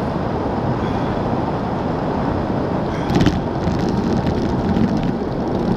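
Wind rushing over the camera's microphone as a road bike descends at about 30 mph, with a burst of sharp clicks and rattles about three seconds in and scattered ticks after.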